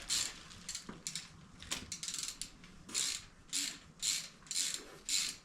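Hand ratchet wrench being swung back and forth on a bolt, each stroke a short burst of pawl clicking. The strokes are irregular at first and settle into about two a second in the second half.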